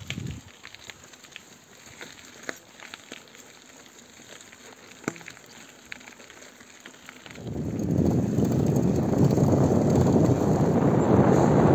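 Bicycle tyres rolling over a gravel track: a quiet crackle with scattered sharp clicks. About seven and a half seconds in, it changes abruptly to a loud, steady rush of wind on the microphone of a bike riding down a paved road.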